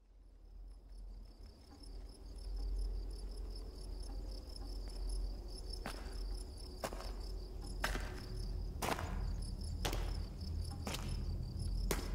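Crickets chirping in a steady, pulsing high trill over a low rumble, fading in over the first couple of seconds. From about halfway through, sharp ticks come about once a second.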